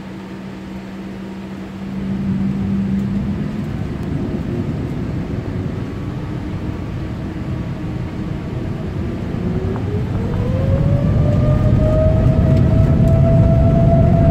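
Boeing 787 Dreamliner's Rolls-Royce Trent 1000 jet engines heard from inside the cabin, spooling up for takeoff. A low rumble grows about two seconds in. Around nine seconds in a whine rises in pitch and then holds steady as the engines reach takeoff power, and the rumble builds louder.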